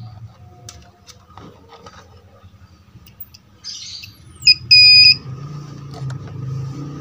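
Digital multimeter beeping as its test probes touch a diode on a TV power board: a short beep about four and a half seconds in, then a half-second beep of the same pitch right after. A few light clicks of the probes on the board come before it.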